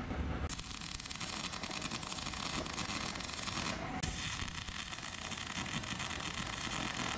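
Wire-feed welder laying tack welds on a steel frame, the arc sizzling steadily. It starts about half a second in and breaks off briefly a little past halfway before striking again.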